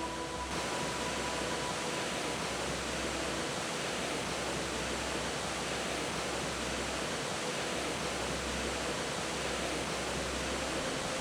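Steady rush of a mountain stream's falling water, an even hiss with no breaks.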